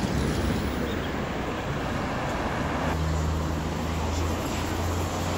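City street traffic noise: a steady wash of passing cars, with a low hum that grows stronger about halfway through.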